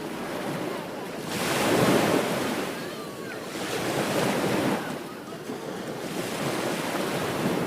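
Ocean surf breaking and washing up a beach in repeated swells of noise, the loudest about two seconds in, another around four seconds, and a rise again near the end.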